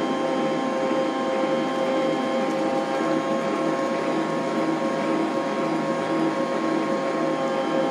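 Electric stand mixer running steadily, beating a sugar-and-egg cake batter. Its motor and gears give a constant-pitched hum.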